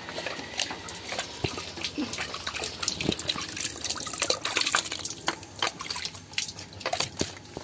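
Milk squirting from a cow's teats into a plastic bucket as the cow is milked by hand: a quick run of short spurts, several a second.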